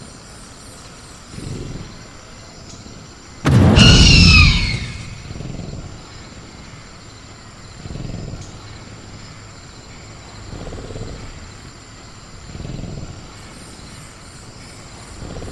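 Velociraptor creature sound effect: soft low grunts every couple of seconds, and about three and a half seconds in a sudden loud shriek that falls in pitch over a second and a half. A steady high cricket chirr runs underneath.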